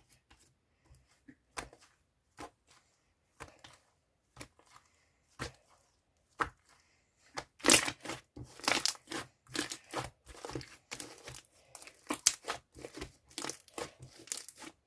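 Thick, chewy yogurt slime being squished and stretched by hand, giving sticky clicks and pops: scattered single clicks at first, then louder and close together from about halfway through.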